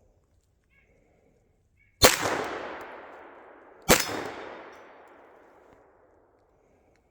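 Two pistol shots from a Sig Sauer P226, about two seconds in and just under two seconds apart, each ringing out for about two seconds.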